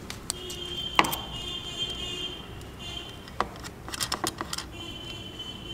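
Small sharp metal clicks and taps from setting an IC into the clamps of an aluminium PCB holder: one about a second in, another past three seconds, and a quick cluster a little later. A faint high steady tone comes and goes underneath.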